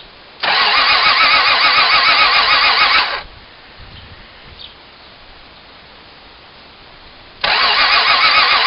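A car engine is cranked on its starter motor twice, each time for about three seconds with a wavering, pulsing whine, and it does not catch or run. It is an engine that won't start.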